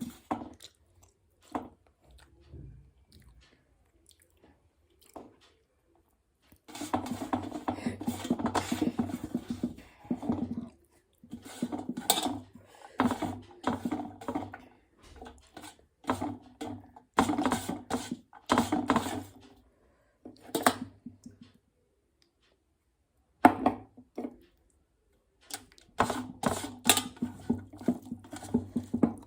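A person chewing food with wet mouth sounds, in bursts a few seconds long separated by short pauses. The longest pause comes a few seconds in.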